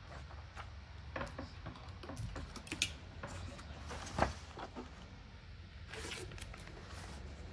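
Pages of a paper magazine being handled: scattered light clicks and taps, the sharpest about four seconds in, with a brief rustle of paper about six seconds in.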